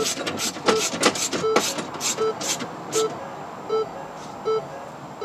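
The 2013 Ford Escape's warning chime beeping steadily, about one short beep every three quarters of a second, as the car's alert that the driver's door is open. For the first couple of seconds a run of clicks and rattles from work on the door runs alongside.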